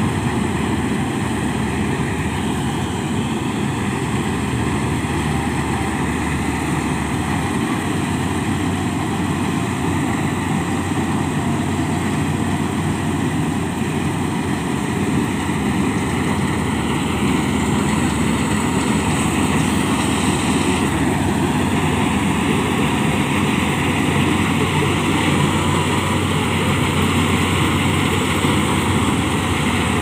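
Malkit combine harvester running steadily while cutting a standing rice crop, its engine and machinery giving one continuous, unbroken drone.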